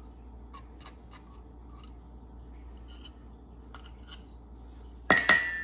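Faint light ticks of a knife tip picking at a raw eggshell. About five seconds in, two sharp clinks on a stainless steel bowl, which rings briefly.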